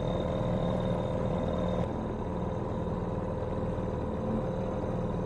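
Small outboard motor running steadily, pushing an inflatable dinghy along at an even speed with a constant engine hum and whine.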